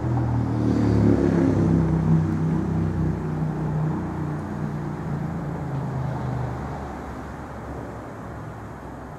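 A motor vehicle's engine running close by on the street, loudest about a second in and then fading away over several seconds as it passes, over steady traffic noise.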